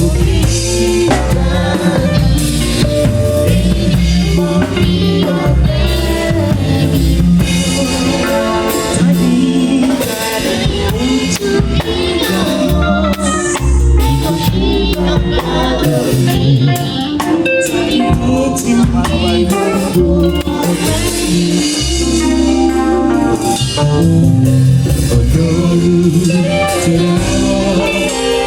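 Gospel music: a drum kit beat under singing, loud and continuous.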